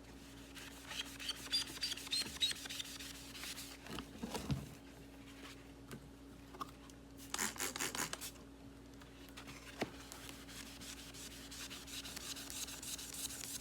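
Hand scrubbing and wiping the dirty plastic housing of a Miele stick vacuum with a cleaning pad, in uneven runs of short rubbing strokes. A faint steady hum lies underneath.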